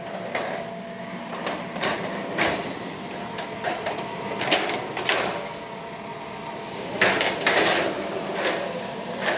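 Steel oven loader sliding into a bread oven's deck and its canvas belt being drawn back out, with clacks and knocks from the frame and rollers and a longer scraping rattle about seven seconds in. A steady hum runs underneath.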